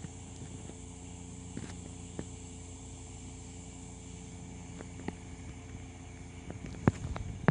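Steady night-time insect chirring, likely crickets, over a low steady hum and rumble. A few sharp clicks and knocks from handling the rod break through it; the loudest comes near the end.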